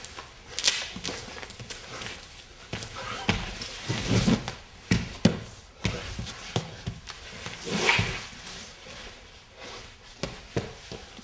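A dancer's hands, knees and feet thumping and scraping on the floor as he kneels, crouches and crawls, his lead-fitted gloves and shoes marking the ground. The knocks are irregular, with a few deeper thumps about four to five seconds in and a longer scrape near eight seconds.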